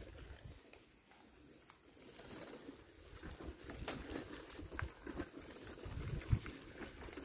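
Footsteps on a dirt and stone path, with irregular crunches and scuffs and the rustle of a handheld phone.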